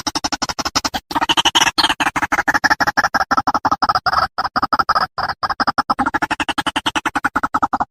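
White-breasted waterhen (ruak-ruak) calling: a rapid, unbroken series of harsh croaking notes, about ten a second, the call used as a hunting lure.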